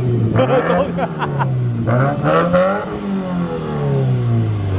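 2018 Subaru WRX's turbocharged 2.0-litre flat-four through a new aftermarket cat-back exhaust, pulling away on its first drive: the revs climb and drop about twice, then fall away steadily near the end.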